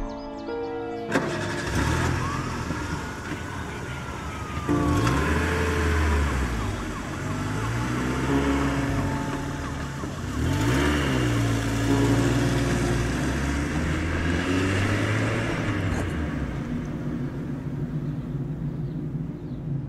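A car engine running as the car pulls away, rising and falling in pitch several times as it accelerates through the gears, then fading out near the end.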